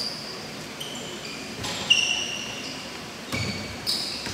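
Basketball shoes squeaking on the court in a string of short, high chirps during play. Sharp thumps come about two seconds in, the loudest moment, and twice more near the end.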